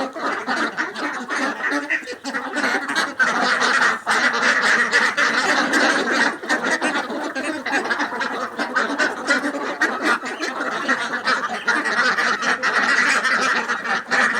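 A flock of domestic ducks quacking continuously, many calls overlapping into a dense chatter.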